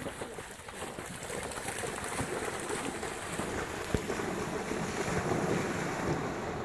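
Continuous splashing of African wild dogs and a young kudu running through shallow pan water during a chase, building over the first second. One sharp knock about four seconds in.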